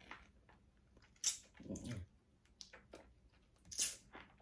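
Wet eating sounds of a person sucking and biting at a seafood shell to work the last bit of meat off, with sharp wet smacks a little over a second in and again near the end.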